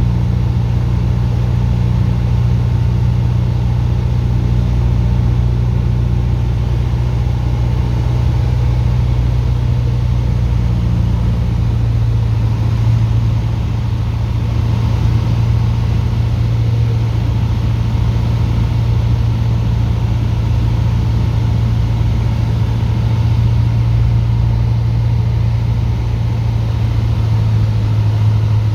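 Light aircraft's piston engine and propeller droning steadily, with a strong low hum; the pitch drops slightly near the end.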